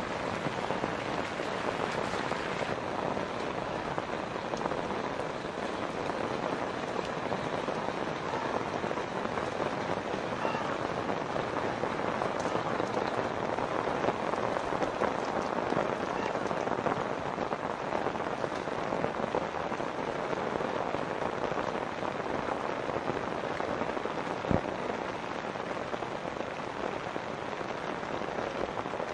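Steady monsoon rain falling, an even hiss of drops with no let-up. One sharp tap stands out late on.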